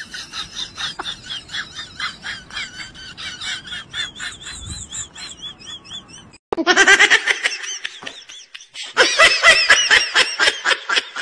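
Laughter in fast, high-pitched ha-ha-ha pulses; it cuts off briefly about six seconds in and comes back louder.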